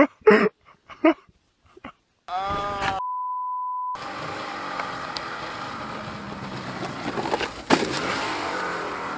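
A few short vocal cries, then a steady beep lasting about a second, then a snowmobile engine running, with a single thump near the end as the sled tips over into deep snow.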